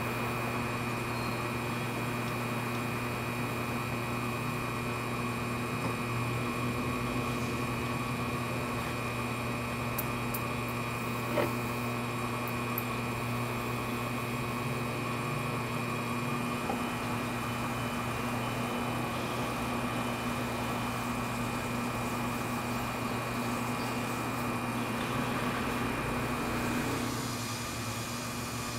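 Wood lathe motor running steadily with a hum, spinning the pen blanks, with one short click about 11 seconds in.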